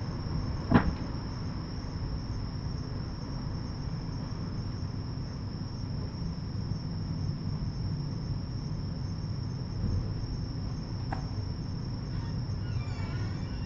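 Crickets chirring in a steady, continuous high trill, with a sharp bang about a second in and a fainter knock near eleven seconds. A faint wavering squeak comes near the end.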